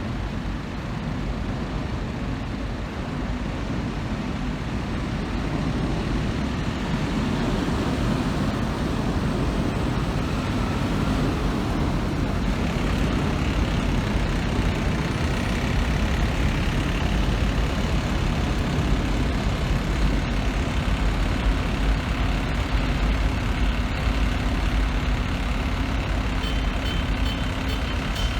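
A heavy truck's engine running amid street traffic noise, a steady low rumble that grows louder over the first several seconds.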